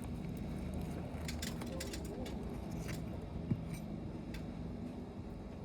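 Scattered light clicks and scrapes of a roofing snake being worked under asphalt shingles to free them, grit and shingle edges rasping against the tool.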